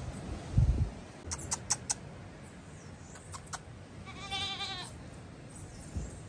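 A goat bleats once about four seconds in, a wavering call lasting under a second. Earlier there is a low thump and a few sharp clicks.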